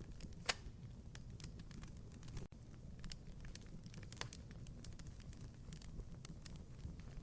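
Wood fire crackling in a fireplace: a scatter of small snaps and pops over a low, steady rumble of the flames. There is one sharp loud pop about half a second in and another a little after four seconds.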